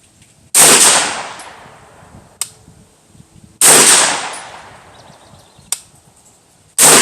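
Three single shots from a 9mm pistol-caliber carbine, fired slowly about three seconds apart, each ringing out in a roughly one-second echo. A smaller sharp click follows about two seconds after each of the first two shots.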